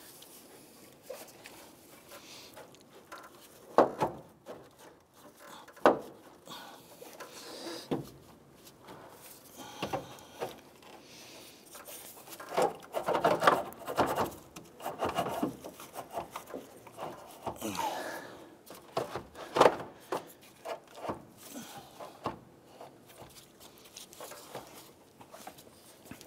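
Car radiator being worked loose and lifted out of the engine bay: scattered knocks, clunks and rubbing as it shifts against the surrounding parts, busiest around the middle.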